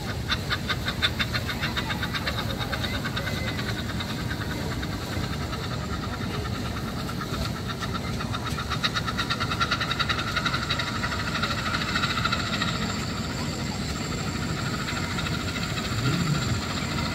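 Steam traction engine running, its exhaust beating evenly at about five beats a second, with a steady hiss-like tone rising over the middle.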